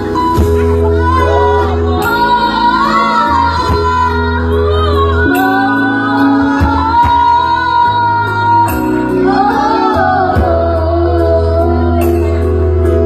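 A five-year-old child singing a melody with gliding and held notes over instrumental accompaniment with a bass line.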